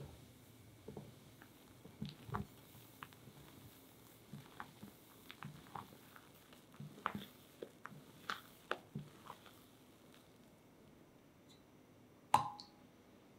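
Spatula folding sifted cake flour into whipped egg batter in a glass bowl: soft, irregular scrapes and squishes. A single sharp clink sounds near the end.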